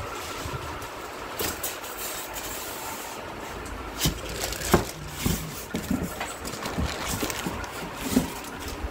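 Unboxing handling noise: scattered knocks and clicks, the sharpest about halfway through, over a steady low rumble.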